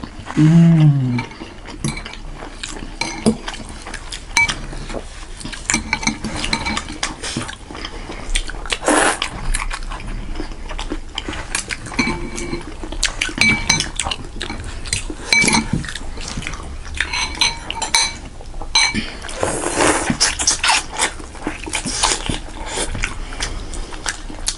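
Spoons and cutlery clinking and scraping against bowls and plates while eating momo and thukpa noodle soup, in many short irregular clinks, some ringing briefly.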